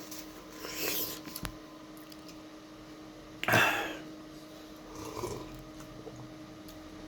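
Mouth and breath sounds of a person eating momos. There is a loud, sharp noisy breath or slurp about three and a half seconds in, with softer ones about a second in and around five seconds, and a few small clicks.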